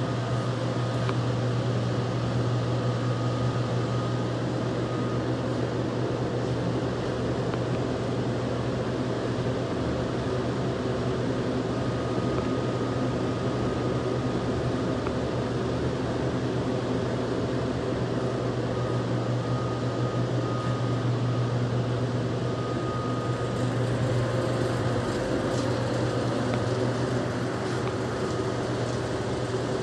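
Refrigeration equipment running with a steady low machinery hum and a faint high tone that comes and goes.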